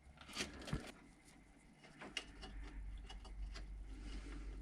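Faint, scattered clicks and light knocks of power-supply cables and their plastic connectors being handled and pushed down into a PC case.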